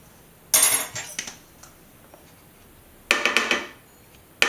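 A kitchen utensil taps and clatters against a container in short bursts of quick strokes: once about half a second in, again just after three seconds, and again at the very end. This is typical of spooning chopped garlic into a food processor bowl.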